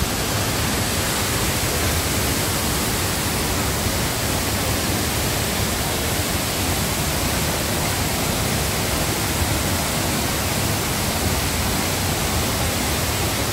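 A tall waterfall falling into its plunge pool: a loud, steady rush of water.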